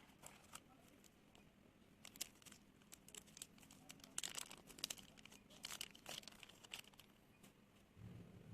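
Faint crinkling and tearing of toy packaging being opened by hand, with scattered sharp clicks, busiest from about two to seven seconds in.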